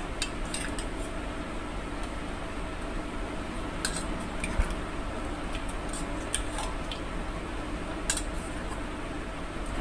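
A metal spoon clinking and scraping against a steel tumbler now and then while fried soya chaap pieces are turned in thick chili sauce, over a steady background hum.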